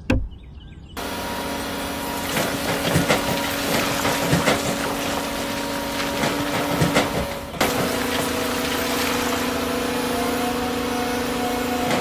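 Small electric gear motors of a remote-control toy excavator whining steadily as its arm and bucket dig, with gritty scraping of sand. The whine shifts to a different pitch about seven and a half seconds in. A single thump comes at the very start.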